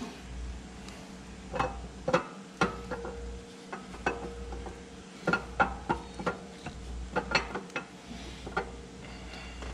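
Irregular small metallic clicks and light knocks as an RPM B3 camshaft is slid and turned by hand into a C6 Z06 engine block's cam bore.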